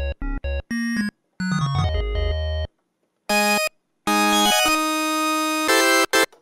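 KORG minilogue four-voice analog synthesizer played dry, with no effects, on organ-style patches. Short chords over a deep bass note and some longer chords come first. After a short pause just under three seconds in, a brighter sound with no deep bass plays a long held chord, then more short chords near the end.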